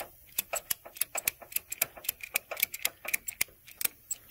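Ratchet tie-down strap being cranked: a quick, uneven series of sharp clicks from its ratchet, about three or four a second, as the strap is tightened to pull the loose radiator core support over.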